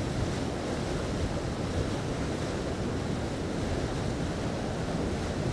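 Steady rush of wind and water noise on board a motor yacht under way, with no marked changes.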